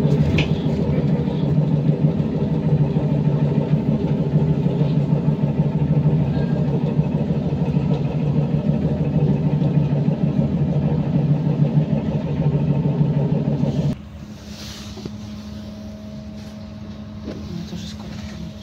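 Loud steady mechanical drone of the Trolza-5275.07 Optima trolleybus's onboard machinery, heard inside the cabin and holding one pitch throughout. About fourteen seconds in it switches off abruptly, leaving a much quieter steady hum.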